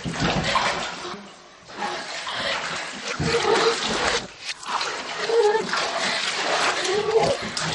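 Water sloshing and splashing in a bathtub, with several short whimpering cries over it.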